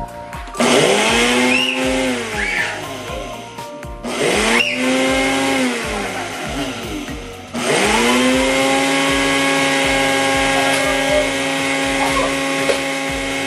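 Ninja blender grinding dry rolled oats into flour. The motor gives two short pulses, each spinning up and winding down, then runs steadily at high speed from a little past halfway through.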